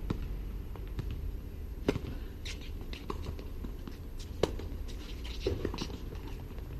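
Tennis balls struck by rackets during a rally on an outdoor hard court: sharp pops, the clearest about two seconds in and a louder one about four and a half seconds in, over a low steady rumble.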